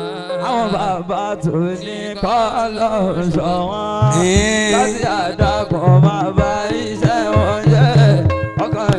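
Religious praise singing: a solo voice chanting a winding, ornamented melody over hand drums, with low drum strokes that bend in pitch.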